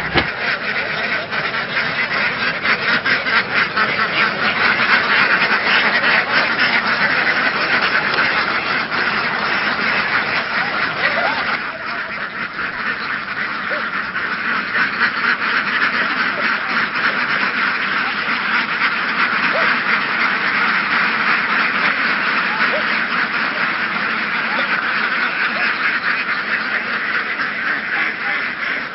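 A large flock of domestic laying ducks quacking all together in a dense, unbroken chorus.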